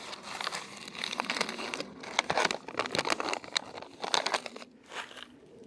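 Foil food pouch crinkling and crackling as it is handled in the hands: a run of quick crackles for about four and a half seconds, then one more short rustle near the end.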